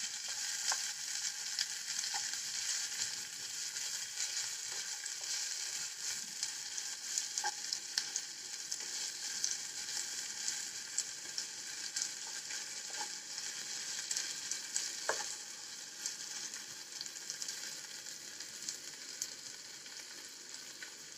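Sliced onions with ginger-garlic paste frying in hot oil in a non-stick kadhai, stirred with a wooden spatula: a steady sizzling hiss with scattered small crackles, easing slightly near the end as the onions cook down.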